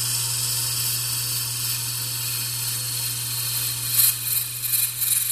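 Wood lathe running with a steady hum while a flat scraper cuts the inside of a spinning horn cup, a steady hissing scrape. About four seconds in the scraping gets louder and rougher.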